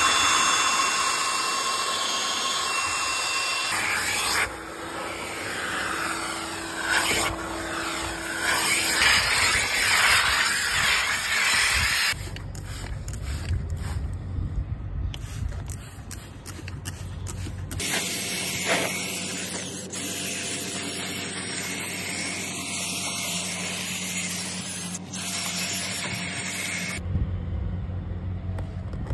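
Cordless drill spinning a red scrub brush against car carpet for about the first twelve seconds. Then come steady machine noise and rubbing and spraying sounds as a wet rubber floor mat is cleaned.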